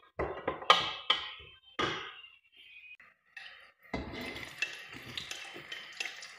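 A metal spoon knocks against a stainless steel pot several times, each clank ringing briefly. About four seconds in, sliced red onions are scraped off a plate into a pan of hot oil and begin to sizzle, with light clicks of the plate against the pan.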